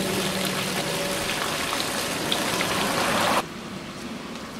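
Hot spring water pouring from a pipe into a concrete basin, a steady splashing that cuts off abruptly about three and a half seconds in. A quieter steady hiss follows.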